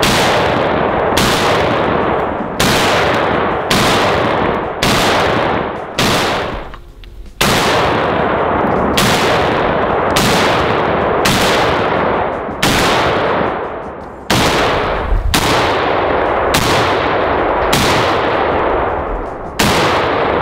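Zastava M77, a .308 AK-pattern rifle, fired semi-automatically in slow aimed single shots, about one every second or so. Each sharp crack trails off in a long echo.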